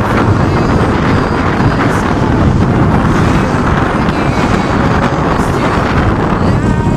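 Loud wind noise on the microphone of a moving motorcycle, over the steady running of its engine and the road noise.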